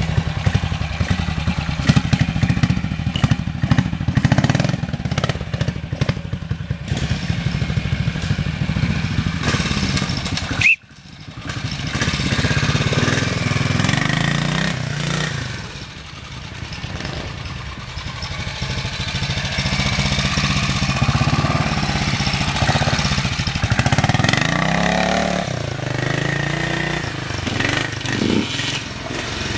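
Classic trials motorcycle engines running at low revs and blipping up and down in pitch as the bikes pick through a slow, tight section. About eleven seconds in, the sound cuts off sharply and then picks up again with another bike.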